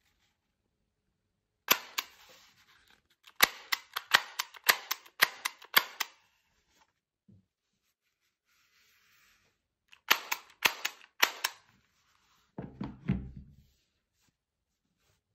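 Umarex T4E HDR 68 CO2 revolver firing in quick strings of sharp cracks, two to three shots a second, with a pause between strings. Near the end comes a short, low rumbling thud.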